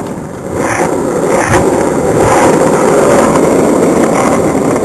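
Hard wheels rolling over rough asphalt: a steady grainy rumble that builds about half a second in and eases off near the end.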